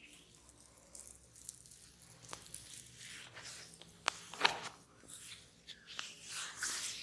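Hands massaging a head, rubbing and scrunching through the hair with a crackling rustle, broken by several sharp clicks, the loudest a pair a little past the middle.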